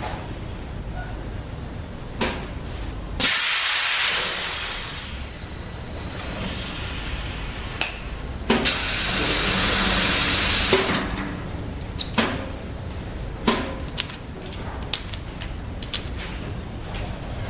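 Hot-press wooden spoon forming machine in its cycle: two long bursts of hissing, each a few seconds, the first strongest as it starts and then fading. Between them come scattered sharp clunks and clicks of the metal mould and tray over a steady machine hum.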